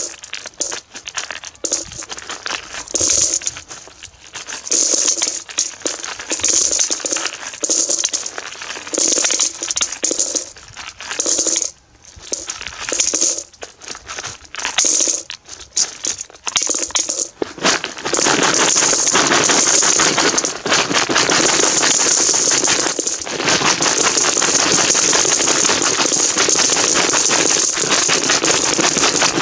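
Russian 1- to 10-rouble coins poured from a plastic canister into a galvanized metal bucket of coins, clinking and rattling as they land on the heap. At first they tumble out in short, uneven spurts; a little past halfway they become one steady, continuous pour.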